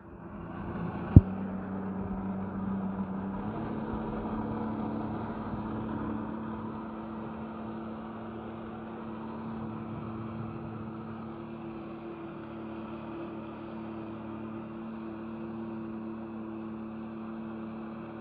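Jet ski engine running steadily under throttle while it powers a flyboard through its jet pump; its pitch steps up slightly about three seconds in, then holds. A single sharp knock about a second in.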